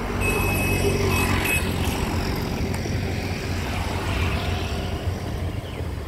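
A motor vehicle engine running steadily with a low rumble. In the first second and a half, a few short high-pitched bird calls.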